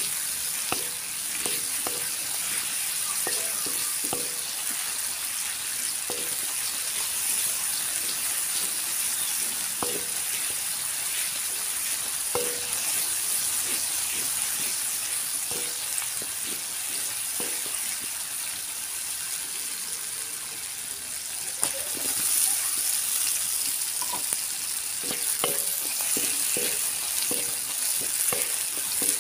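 Red balado spice paste sizzling steadily in hot oil in a pan, with a spatula scraping and knocking against the pan now and then, more often near the end as it is stirred.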